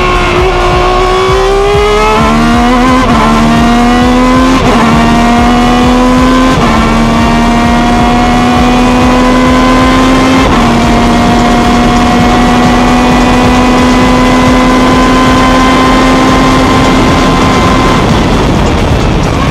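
Ferrari 333 SP's V12 engine heard onboard at racing speed. The engine note dips and rises at first, then shifts up through the gears about 3, 4.5, 6.5 and 10.5 seconds in. It holds a steady high note until it breaks off near the end.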